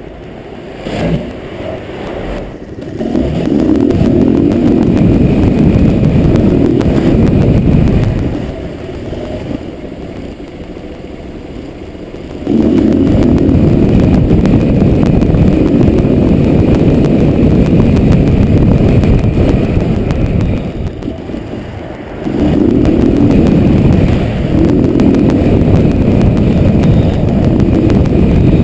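Motorcycle riding through town heard from a helmet-mounted camera, engine running under wind rush on the microphone. There are three loud stretches as the bike pulls away and rides on, about three, twelve and twenty-two seconds in, with quieter lulls between where it slows or idles.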